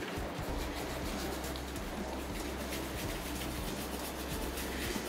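A brass fitting being rubbed and scrubbed by hand with a pad: a continuous scratchy rubbing, over a steady low hum.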